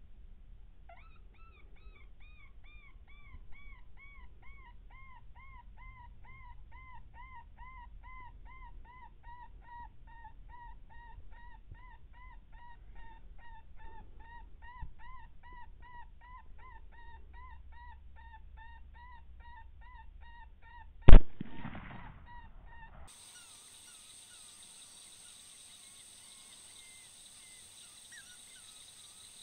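Electronic predator caller playing a rapid, evenly repeated animal distress cry, about three to four calls a second, with a single loud rifle shot about 21 seconds in. The calling stops just after the shot, and a steady electronic hiss follows.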